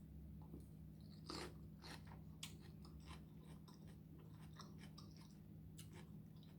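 A person chewing salad close to the microphone, with faint, scattered crunches and mouth clicks over a steady low hum.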